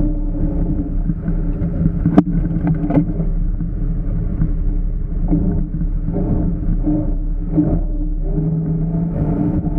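Off-road vehicle engine running steadily, its pitch wavering a little as the throttle changes, with a sharp knock about two seconds in and a few lighter knocks just after.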